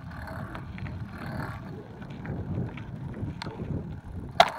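Bicycle tyres rolling over a gravel driveway, a steady rumbling crunch with wind buffeting the microphone and small rattles from the moving bike. A single sharp click a little over four seconds in.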